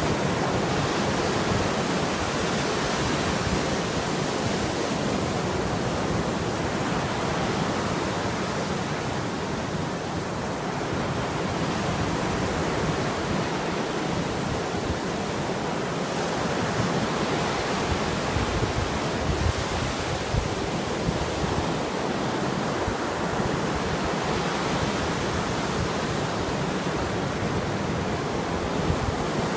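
Caspian Sea surf washing on the shore: a steady rushing noise that slowly swells and ebbs.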